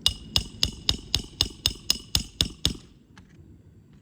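Roof snake shingle-nailing tool hammering a long roofing nail under a shingle through two layers of roofing: about eleven sharp metal-on-metal strikes, roughly four a second, each with a short ringing tone, stopping after nearly three seconds.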